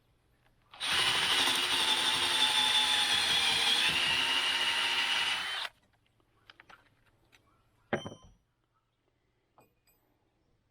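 Cordless power drill/driver driving a screw into lumber: the motor runs steadily for about five seconds, its pitch shifting slightly as it loads, then stops abruptly. A single short knock follows a couple of seconds later.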